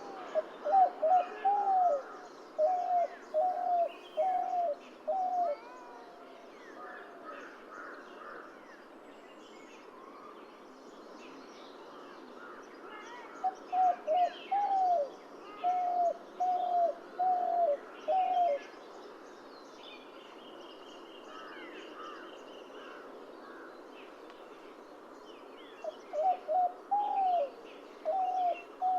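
Spotted dove cooing in three bouts, near the start, in the middle and near the end. Each bout is a quick pair of notes followed by five or six evenly spaced coos. Other small birds chirp faintly and high-pitched in the background.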